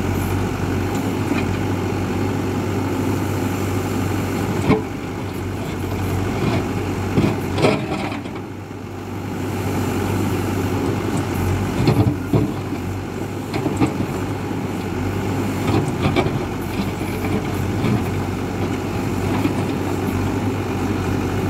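Hidromek 102B backhoe loader's diesel engine running steadily under digging load, with knocks and scrapes of the bucket working hard ground. The loudest knocks come about 5, 7.5, 12 and 16 seconds in.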